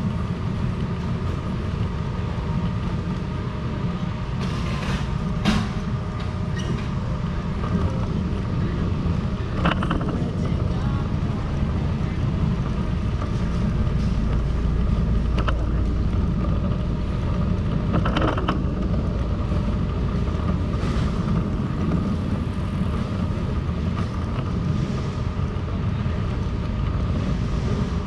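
Steady low rumble of city street ambience, with traffic noise and a few short knocks and clicks.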